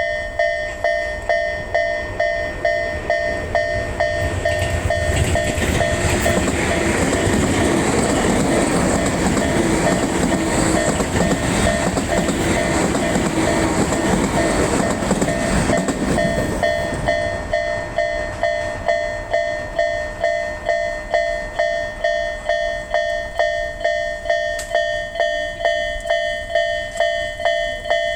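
Japanese railway level-crossing bell ringing in a steady repeated ding, about one and a half strikes a second. A train passes over the crossing from about four seconds in to about seventeen seconds in, and its running noise rises over the bell and then fades away again. The bell keeps ringing after the train has gone.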